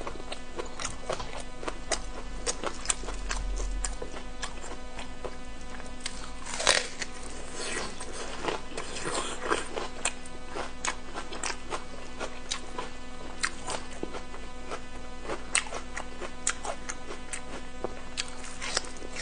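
Close-up chewing and biting of cooked pig intestine: many short, wet, sticky clicks and smacks, with a louder slurp-like bite about seven seconds in, over steady background music.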